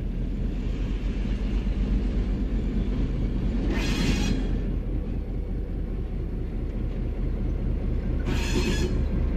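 ÖBB class 2050 diesel-electric locomotive's EMD two-stroke V12 engine running as it rolls past, a steady low rumble that slowly grows louder. Two short high-pitched sounds come in about four and eight and a half seconds in.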